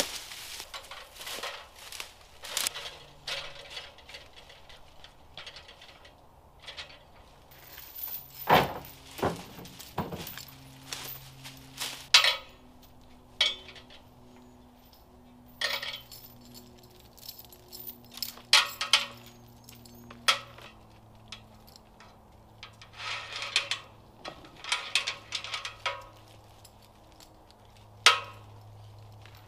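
Heavy steel chain clinking and rattling in irregular bursts as it is handled and fastened high around a tree trunk, with a few louder metallic knocks.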